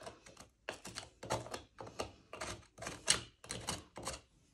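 Flathead screwdriver scraping old, crumbling grout out of the seams between ceramic floor tiles: a run of short, scratchy strokes, two or three a second. The grout is old and rotten, so it comes out easily.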